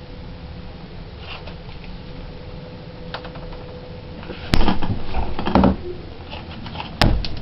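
Refrigerator or freezer door and packages being handled: a loud knock about halfway through, a second of rustling and bumping, and a sharp click near the end, over a faint steady hum that stops shortly before the click.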